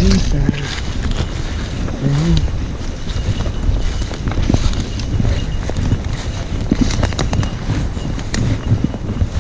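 Wind buffeting the microphone outdoors, a steady low rumble with scattered sharp clicks and snaps, and one short shout about two seconds in.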